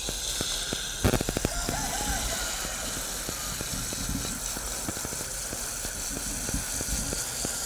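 Microphone interference: irregular crackling clicks over a steady hiss, with a dense cluster of clicks about a second in.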